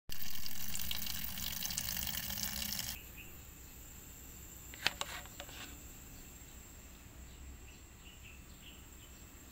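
Water running from a tap for about three seconds, an even hiss that cuts off abruptly. After it comes a low background with a sharp click about five seconds in and faint high chirps.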